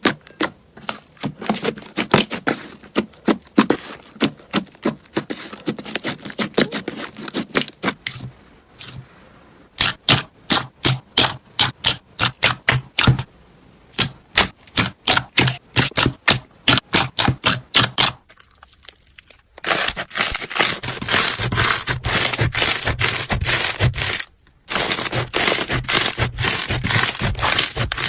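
Slime being squeezed and pressed by hand, making a fast series of sharp crackling pops, about two to three a second. From about two-thirds of the way through it turns into a denser, continuous crunching, broken once by a brief gap.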